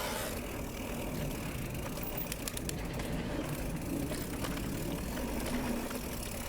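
Mountain bike riding over a dirt trail: steady tyre and frame rumble, with a cluster of sharp clicks and rattles a little past two seconds in.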